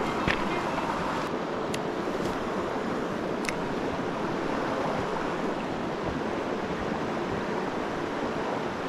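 Steady rush of a river's flowing water, with a few faint ticks.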